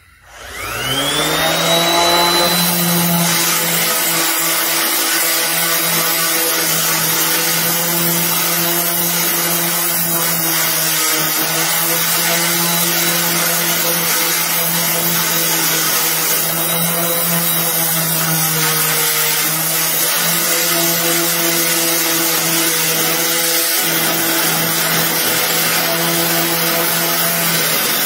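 Electric random orbital sander with an 80-grit disc starting up about half a second in, its whine rising quickly to full speed, then running steadily with a gritty rasp as it sands the steel of a tin car grille.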